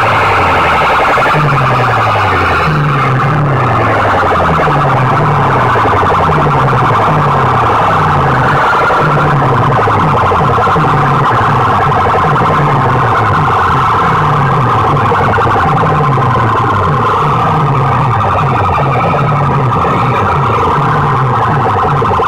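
A bank of horn loudspeakers blaring a distorted, siren-like electronic sound at very high volume. A low tone falls in pitch again and again, about once a second, over a harsh steady blare.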